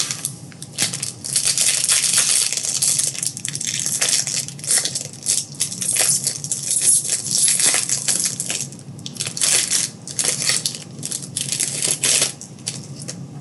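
Trading-card pack wrappers crinkling and rustling as packs are torn open and handled, in quick irregular bursts that stop about a second before the end.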